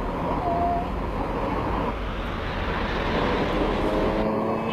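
Steady rumble of a running vehicle engine mixed with street noise.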